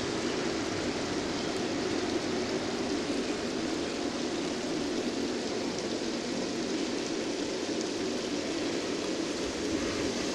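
Water running steadily over the rocks of a garden pond's stream.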